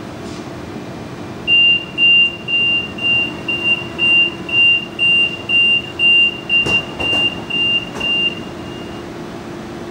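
Sydney Trains Millennium (M-set) carriage's door warning beeper: a high electronic beep repeated about twice a second for some seven seconds. It sounds over the steady hum of the standing carriage, with a couple of clunks near the end.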